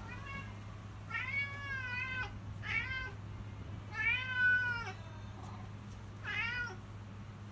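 Domestic cat meowing insistently for food: four clear meows, two long drawn-out ones alternating with two shorter ones, over a steady low hum.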